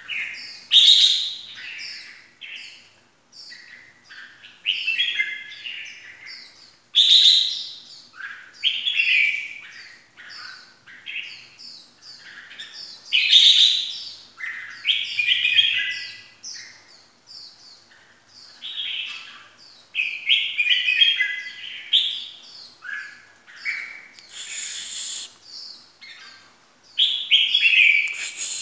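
Caged red-whiskered bulbul singing, with loud bursts of quick, varied chirping phrases about every six or seven seconds and softer chirps between them.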